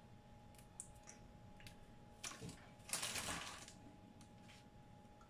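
Fresh herbs being plucked and handled: a few light clicks, then two short rustling crackles about two and three seconds in, the second louder and longer. A faint steady hum sits underneath.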